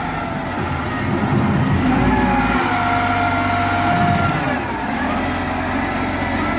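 Bulldozer's heavy diesel engine running under load, a steady low drone that swells for a couple of seconds near the middle, with a thin higher whine wavering in pitch above it.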